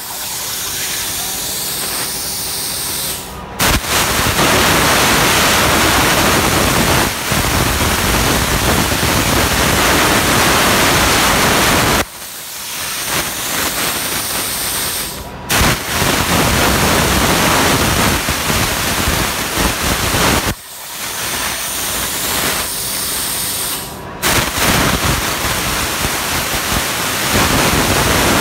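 CNC plasma cutter torch cutting metal: a loud, steady hissing rush that comes on and cuts off sharply three times, each cut lasting several seconds. Between cuts there is a quieter hiss.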